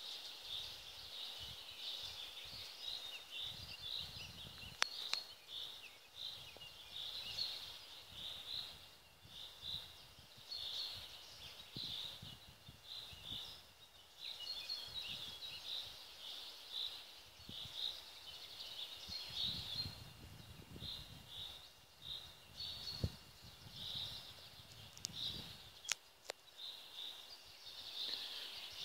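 Woodland birds chirping and singing, a steady run of short high chirps, with a couple of sharp clicks.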